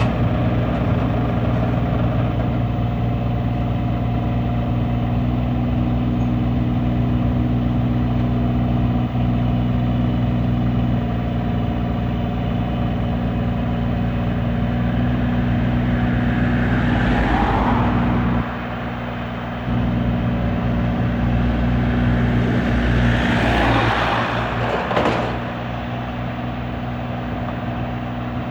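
Excavator's diesel engine running steadily under load, with two stretches of rushing noise over it, about halfway through and again a few seconds later, after each of which the engine drops quieter.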